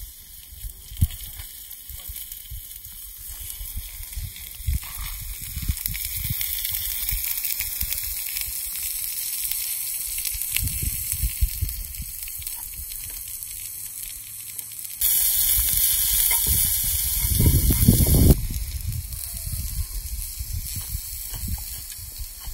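Onions and meat sizzling on a flat rock heated over a fire, a steady hiss over irregular low rumbles and a few knocks. The sizzle is louder for about three seconds, starting about two-thirds of the way in.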